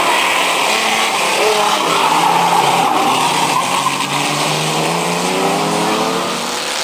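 Dirt-track race car engines at high revs as the cars come through a corner, their pitch rising and falling with the throttle.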